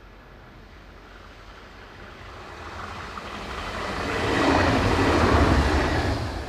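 A two-car diesel multiple unit approaching and passing close by at speed: the low engine rumble and the wheel noise on the rails swell to a peak between about four and six seconds in, then fall away quickly as it goes past.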